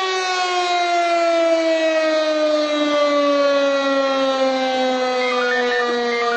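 Alarm siren wailing, its pitch falling slowly and steadily, then turning to rise again right at the end.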